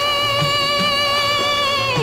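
Background music: one long held note over low drum beats, the note bending downward near the end.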